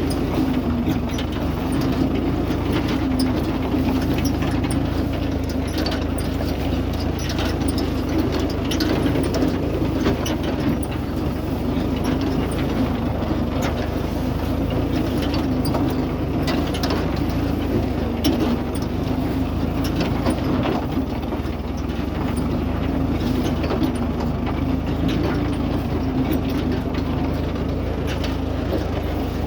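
John Deere 116 W hay baler running, a steady engine drone with frequent irregular clicks and clatter from the working machinery.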